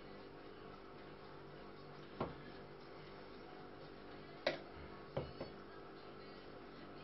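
A few sharp knocks of a knife against a plastic cutting board while pork jowl is trimmed: one about two seconds in, a louder one past the middle, then a quick pair, over a steady faint hum.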